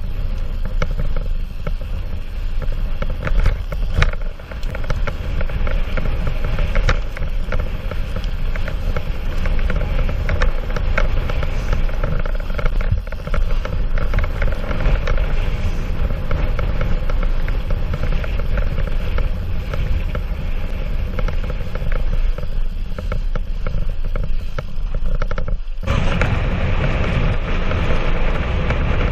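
Mountain bike ridden over a rough dirt trail: steady wind rushing over the microphone, with tyre noise and frequent rattles and clatters from the bike over bumps. The sound breaks off sharply and jumps to a new stretch near the end.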